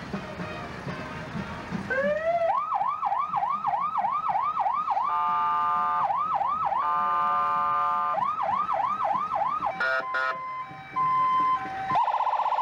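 Electronic emergency-vehicle siren passing by. It winds up about two seconds in, then alternates between a fast yelp and a steady tone. Near the end come short chirps and a brief steady note, then another siren starts. Music is heard at the very start.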